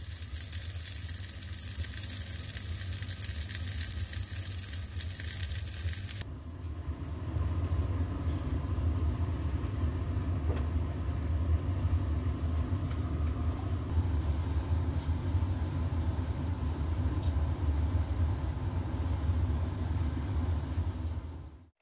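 Fish head sizzling as it roasts in an oven, a loud hiss over a low hum. About six seconds in it changes to a pot of fish bones simmering for stock, bubbling over a steady low rumble.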